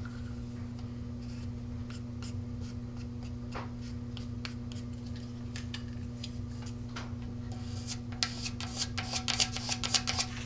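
Wooden tongue depressor rubbed along the fin-to-body-tube joint of a model rocket to transfer marker ink along the fillet line: light scraping strokes that come thicker and louder about eight seconds in. A steady low electrical hum runs underneath.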